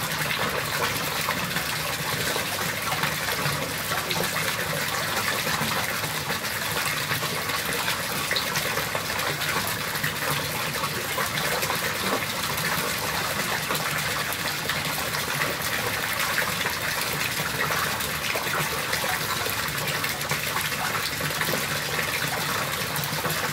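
Steady rush of water pouring into a swimming pool, churning the surface.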